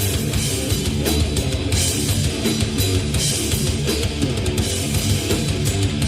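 Live heavy metal band playing loud distorted electric guitars over fast drums with dense cymbals, an instrumental passage without vocals.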